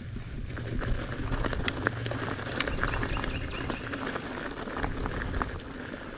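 Mountain bike riding over bumpy grass: tyres running and the bike rattling, with scattered clicks and knocks over a steady low rumble of wind on the mic.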